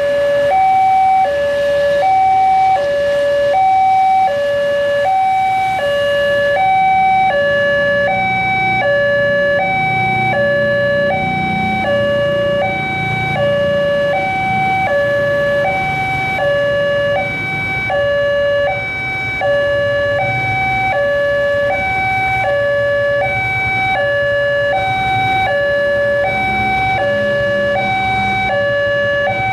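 Railway level-crossing alarm sounding from the horn loudspeaker on the signal post: an electronic two-tone warning that alternates steadily between a higher and a lower note, warning of an approaching train. A low rumble of engines rises beneath it in the middle.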